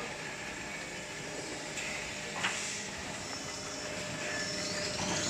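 Toilet paper production line machinery running steadily, a constant mechanical noise with one sharp click about two and a half seconds in. A high whine starts to rise near the end.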